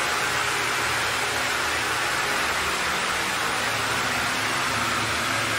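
A steady hiss with a faint low hum underneath, unchanging throughout.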